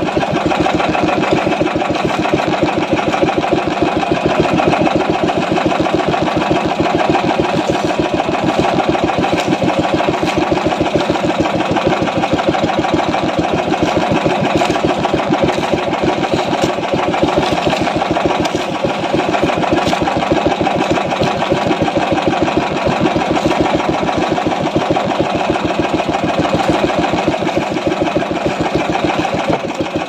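Small boat engine running steadily at an even speed, with a fast, regular beat.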